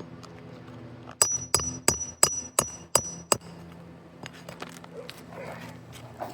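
Hammer striking a steel roof snake worked under the shingles: seven sharp, ringing metal blows at about three a second, followed by a few lighter taps.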